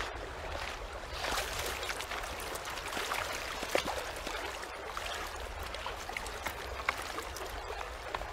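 Water sloshing and lapping at a stony lakeshore as a man wades in and dips a waterskin, with scattered clicks of footsteps on pebbles.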